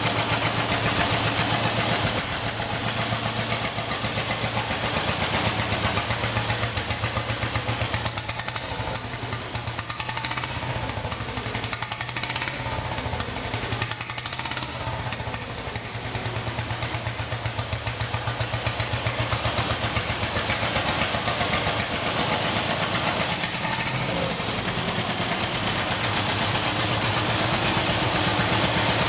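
1930 Ariel VF31 497cc single-cylinder overhead-valve engine running steadily, a rapid even beat of firing strokes that dips slightly in loudness around the middle.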